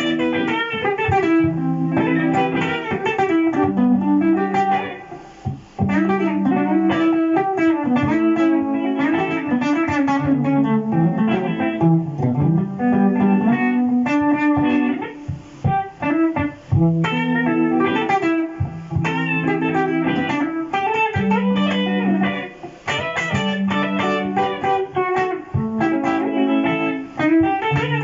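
Electric guitar played through a Boss GT-100 multi-effects unit: quick melodic jazz lines over a repeating loop of sustained low notes, with a few brief pauses in the playing.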